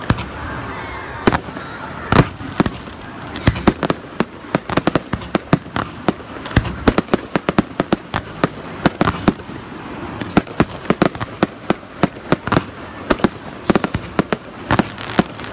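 Fireworks going off overhead: a rapid, irregular barrage of sharp bangs and cracks, several a second.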